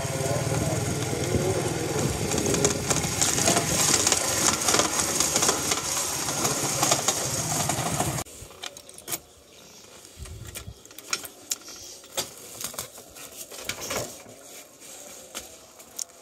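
A small motorcycle running steadily while being ridden, its engine and wind noise loud. About halfway through it cuts off sharply to a much quieter stretch of footsteps and scattered light clicks.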